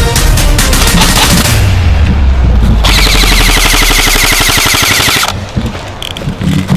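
Airsoft replica rifles firing rapid full-auto bursts, with one long, even burst about halfway through, over background music with a steady bass.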